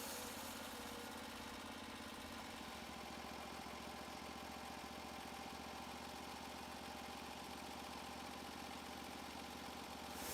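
Portable sawmill's small gas engine running steadily at idle, with no blade cutting heard.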